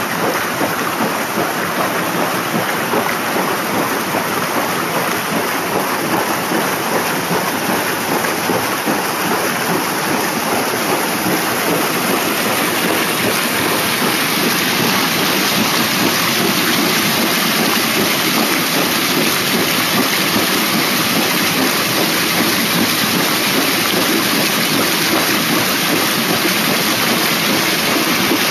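Swollen floodwater rushing steadily down a stream, getting a little louder about halfway through.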